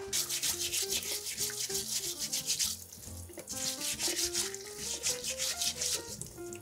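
Fast, rhythmic back-and-forth scraping strokes in two runs, with a short pause about three seconds in, over gentle melodic background music.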